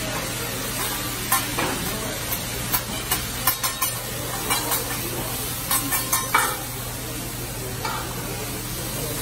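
Food sizzling on a teppanyaki griddle, with irregular sharp clicks and scrapes of metal spatulas striking the steel plate. A steady low hum runs underneath.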